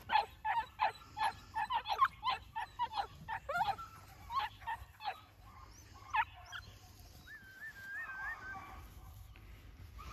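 New Zealand huntaway puppies barking in quick, high yapping runs of several barks a second, the breed's driving bark aimed at sheep, thinning out after about five seconds. A short, thin wavering tone follows about eight seconds in.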